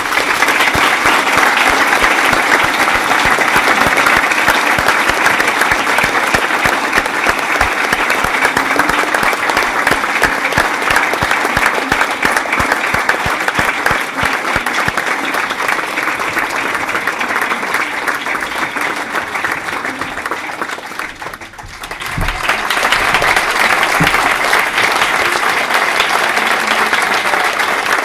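Large audience applauding, a dense, steady clapping that thins briefly about three-quarters of the way through, then comes back at full strength.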